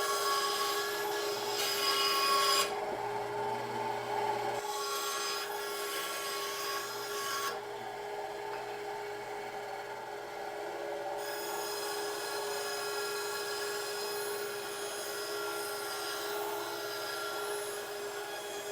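A saw cutting out a curved four-point knob shape from a wooden board, the rasping cut coming and going in stretches over a steady hum.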